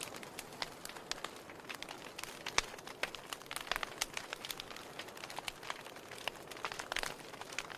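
Wood fire burning in a fireplace, crackling and popping irregularly over a steady soft hiss; the sharpest pop comes about two and a half seconds in.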